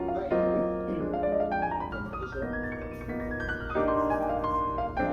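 Background piano music: chords struck in turn, with a run of notes rising partway through.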